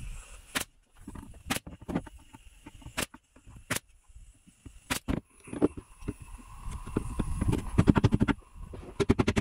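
Plywood panels of a freshly glued wooden box being handled and pressed together: scattered sharp knocks, a stretch of low rubbing with quick taps in the middle, and a fast run of taps near the end.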